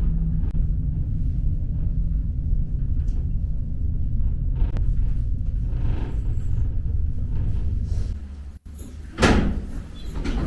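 Steady low rumble of a moving vehicle that breaks off suddenly about eight seconds in. A short, loud whoosh follows, falling in pitch, then a quieter rumble.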